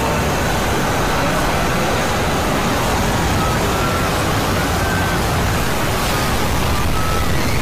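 Loud, steady wall of harsh distorted noise, with faint short tones showing through now and then: the soundtrack of several overlaid logo clips pushed into heavy distortion.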